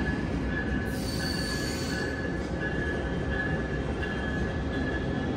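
Bilevel passenger cars of an arriving Amtrak Capitol Corridor train rolling slowly along the platform, with a steady rumble and a high wheel squeal that keeps breaking off and coming back. A second, higher squeal joins briefly about a second in.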